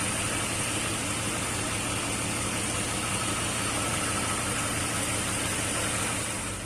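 BMW M62B35 V8 engine idling steadily and quietly with a newly installed timing chain set, after its chain had been rubbing against the timing cover.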